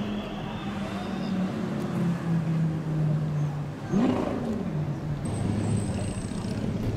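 A classic car's engine idling, with one quick rev blip about four seconds in.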